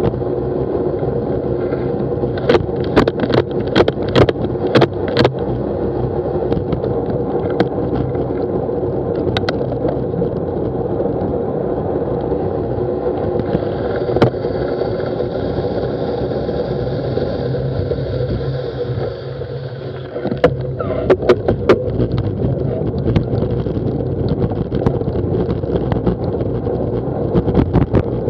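Bicycle riding along a wet road at about 10 to 12 mph, heard through an action camera mounted on the bike: steady tyre and wind noise, with sharp clicks and knocks from bumps in the surface, several in quick succession a few seconds in and again about three quarters of the way through.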